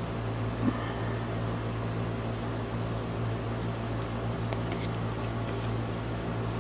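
Steady low hum of room background noise, with a small knock about a second in and a few faint light clicks near the middle from a trading card being handled and turned over.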